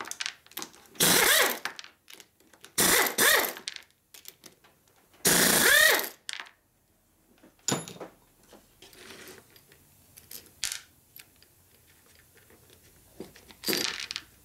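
Harley-Davidson panhead rocker arm being worked by hand on its shaft: three loud bursts of metal rattling and scraping in the first six seconds, a sharp click about eight seconds in, and one more short burst near the end.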